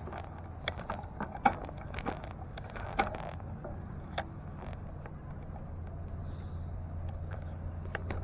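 Riding noise from a bicycle: a steady low rumble of tyres and wind, with a few sharp clicks and rattles, most in the first half.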